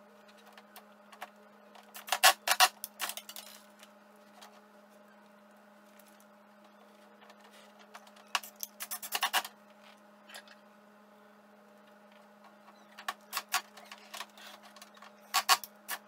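Cordless drill driving screws through a flexible extension shaft in four short bursts of clicking and rattling, spaced several seconds apart, over a steady low hum.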